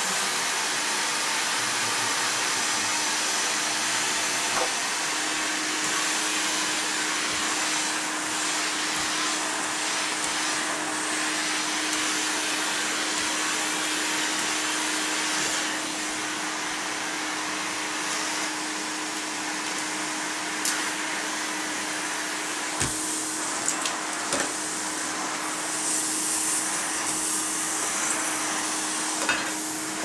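Electrolux Super J canister vacuum running steadily as its nozzle is worked over the floor, with a steady hum coming in after about five seconds. A few light knocks from the nozzle in the later part.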